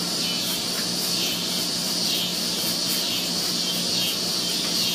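Paintbrush stroking paint across a particle-board tabletop: soft swishes about once a second over a steady hiss and a low hum.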